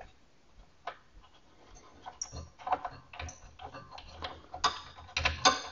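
Light, irregular clicks and taps of a scroll saw's metal upper blade clamp and set screw being handled by hand as a blade is fitted and the screw is tightened, with a few louder clicks near the end.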